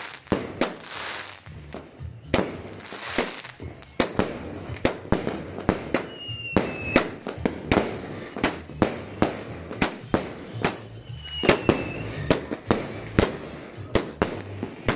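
Aerial fireworks bursting overhead in a rapid series of sharp bangs. The bangs are spaced out at first, with a hissing crackle between them, and come about two to three a second after about four seconds.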